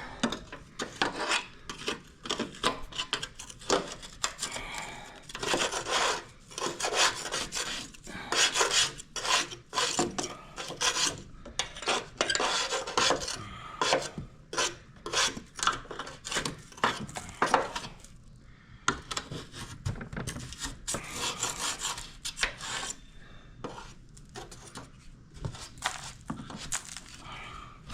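Metal paint scraper scraping built-up dirt off a Toro TimeCutter mower in quick, irregular repeated strokes.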